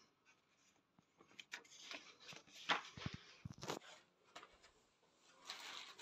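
Irregular rustling and crinkling of paper and plastic packaging being handled, with a few soft knocks near the middle.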